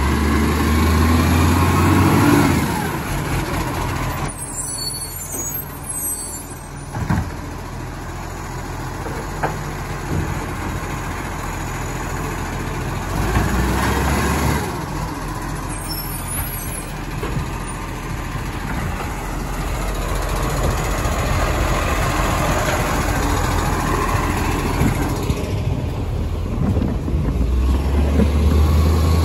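Iveco side-loading garbage truck collecting wheelie bins: its diesel engine runs steadily and revs up three times as the hydraulic lifting arm works, near the start, about halfway through and near the end. A few sharp knocks and short bursts of hiss come in between.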